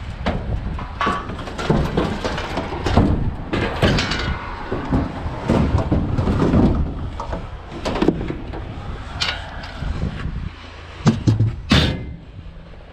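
Wind buffeting the microphone in a constant low rumble, with repeated knocks and clatter from scrap appliances being handled. A sharp bang comes near the end.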